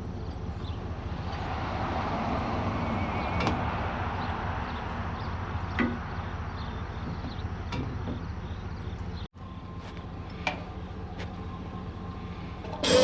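Combine harvester running steadily, a low drone with a hiss that swells a little about two seconds in and a few light clicks. The sound cuts out briefly about nine seconds in.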